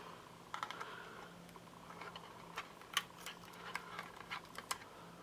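Faint small clicks and crinkly rustling of a paper backing being picked at and peeled off the adhesive base of a coiled-spring action wobble.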